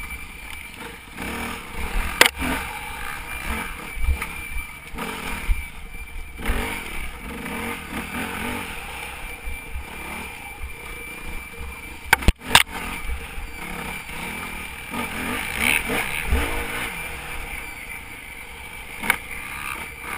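Yamaha WR250F four-stroke single-cylinder engine running and revving up and down as the bike is ridden off-road, with sharp knocks and clatter from the bike, the loudest a close pair of cracks about 12 seconds in. A thin steady high whistle runs underneath; the rider reports a whistling noise from the bike whose cause he cannot find.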